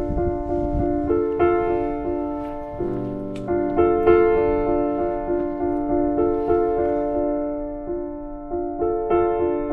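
Background piano music: a slow melody of held notes over chords.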